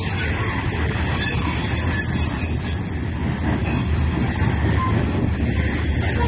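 Loaded coal hopper cars of a freight train rolling past on the rails: a steady heavy rumble of wheels on track, with a thin high wheel squeal over it.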